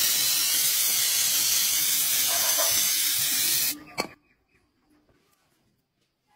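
Aerosol spray can hissing steadily as it sprays, cutting off abruptly a little under four seconds in, followed by a single sharp click.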